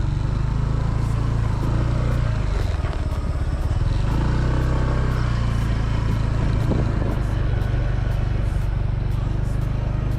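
Motorcycle engine running steadily while riding on a rough road, heard from the onboard microphone with road and wind noise. The engine note dips briefly about three seconds in, then picks up again and holds steady.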